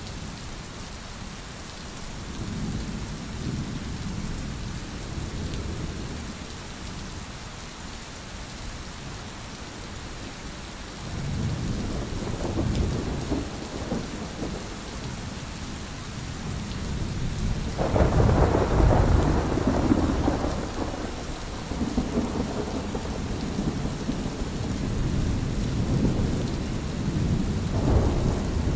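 Thunder rumbling over steady rain. Low rolls come a few seconds in and again around eleven seconds. About eighteen seconds in a louder peal starts suddenly and rumbles on for several seconds, with more rolling thunder near the end.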